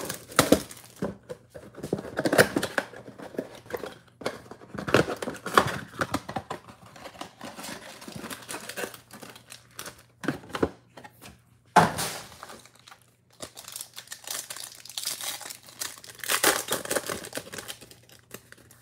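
Plastic shrink wrap crinkling and tearing off a 2022 Bowman Baseball mega box, then the box's cardboard being opened and card-pack wrappers handled. It comes in irregular crinkly rustles and clicks, with one sharp snap about twelve seconds in.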